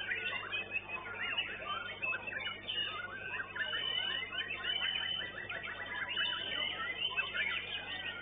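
White-rumped shama (murai batu) singing continuously in a contest cage: a rapid, varied run of whistles and chattering phrases, with other contest birds singing along. The CCTV microphone cuts off the highest notes, and a steady low hum runs underneath.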